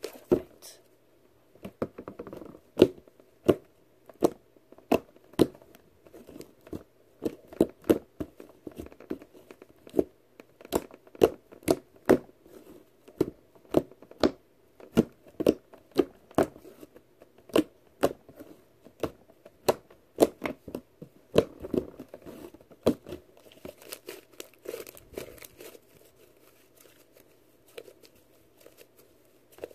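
Thick turquoise slime being kneaded, stretched and pressed by hand, giving sharp popping clicks about once or twice a second. The pops thin out over the last few seconds.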